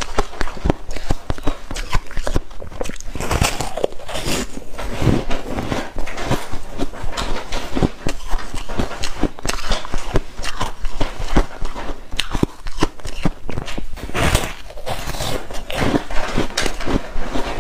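Hard ice being bitten and chewed close to the microphone: a dense, irregular run of crisp crunches and cracks with no pause.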